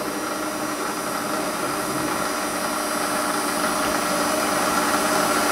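Warco WM180 bench lathe running with a steady mechanical hum made of several fixed tones, while a centre drill turning in its chuck is fed into an aluminium block. The sound slowly grows a little louder.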